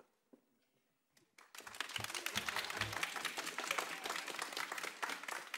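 Audience applause breaking out after a short hush at the end of an opera aria, starting about a second and a half in and carrying on steadily.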